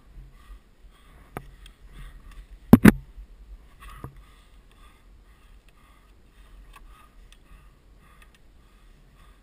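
Climbing gear and the climber's mounted camera knocking against sandstone: a sharp double knock about three seconds in, with a few lighter clicks before and after.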